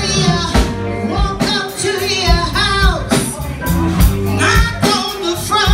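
Live band playing in a bar: a singer over electric guitar and a steady drum beat.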